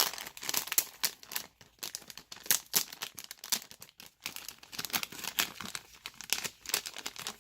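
Plastic squishy packaging crinkling and crackling in quick, irregular bursts as it is handled and opened.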